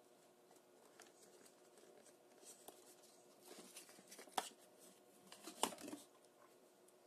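Faint rustling and scraping of a cardboard box insert being handled as a smartwatch is pulled free of it, with two sharp clicks a little over a second apart past the middle.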